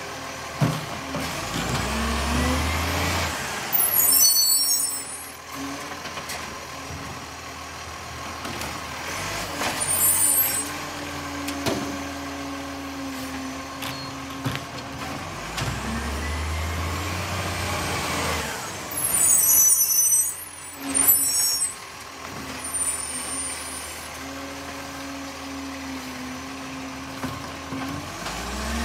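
Iveco Acco side-loader garbage truck working its automated bin arm: the engine revs up twice as the hydraulic arm lifts and tips a wheelie bin, with several short, loud air-brake hisses in between.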